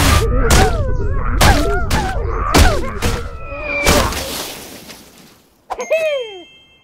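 Cartoon sound effects of snow crashing down: a run of heavy thuds with groaning, sliding sounds between them, fading out after about four seconds. Near the end comes a short falling tone with a faint chime.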